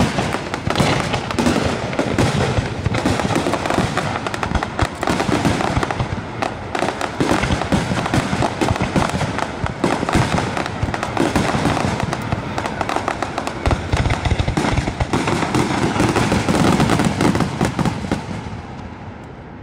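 Aerial firework shells launching and bursting in rapid succession, a dense barrage of bangs and crackle that dies away near the end.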